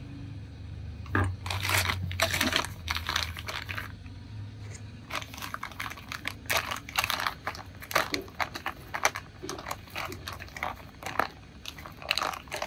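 Clear plastic packaging bag crinkling irregularly as it is gripped and handled around new sway-bar links, starting about a second in.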